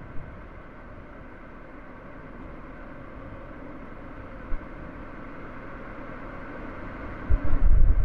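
Car driving: steady road noise that grows slightly louder, with a brief click in the middle and low, gusty rumbling buffeting starting near the end.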